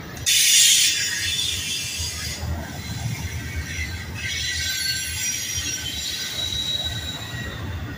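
Double-stack intermodal freight train rolling past: a steady low rumble of wheels on rail, with a high-pitched wheel squeal that is loudest from about half a second in to two seconds and sets in again from about four seconds, holding a thin steady pitch.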